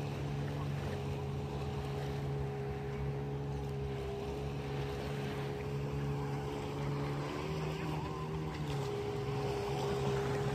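Motorboat engine running steadily, with a pitch change about seven to nine seconds in.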